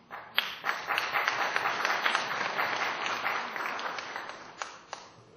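Audience applauding. It starts suddenly, holds steady, then thins to a few last claps and fades out near the end.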